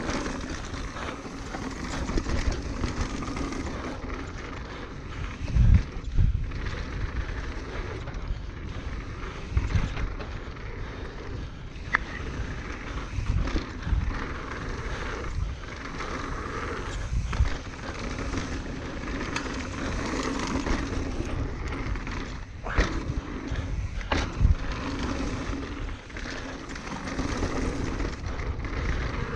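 Norco Range enduro mountain bike riding fast down a dirt trail: a steady rush of tyres on dirt and wind, with rattling and several sharp knocks from bumps.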